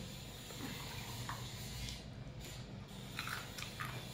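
Someone eating at close range: chewing, with scattered small crunches and clicks, over a steady low hum.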